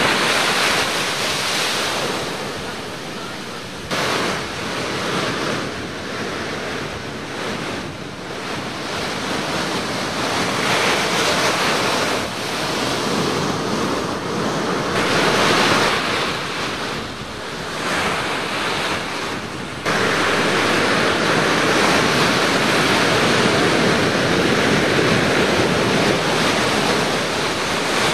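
Ocean surf: waves breaking and washing up the beach in a continuous rushing wash that swells and ebbs, with wind buffeting the microphone. The level jumps suddenly twice.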